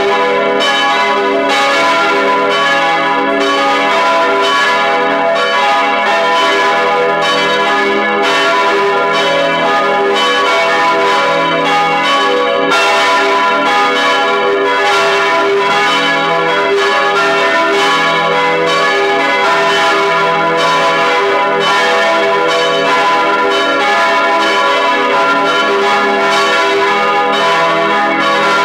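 Full peal of four swinging bronze church bells tuned e′, gis′, h′ and cis′, cast in 1949 by the A. Junker foundry of Brilon, heard close up inside the bell chamber: clapper strikes overlap continuously in a loud, dense wash of ringing tones.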